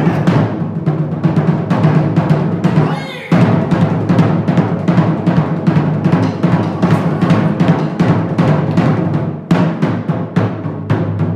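Japanese drums played in a fast, dense rhythm of rapid strokes, breaking off briefly about three seconds in and coming back in loud.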